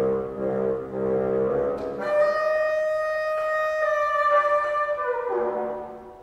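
Unaccompanied bassoon playing slow sustained notes: a low held note, then a long high note from about two seconds in, which steps down to a lower note and fades away near the end.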